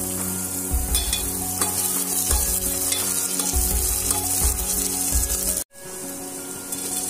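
Vegetables, cashews and raisins sizzling as they fry in ghee and oil in a metal pot, stirred with a wooden spatula in repeated strokes. The sound cuts out abruptly for a moment about two-thirds of the way through.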